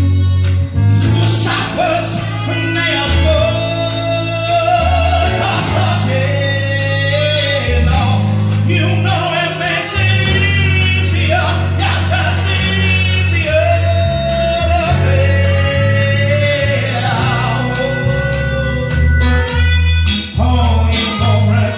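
A man singing a slow song live into a microphone, holding long wavering notes, over amplified accompaniment with a steady bass line and guitar.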